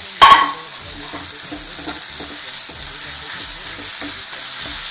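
Chopped tomatoes and onion-spice masala sizzling in a wok while a spatula stirs and scrapes them. A loud clatter with a brief ring sounds just after the start.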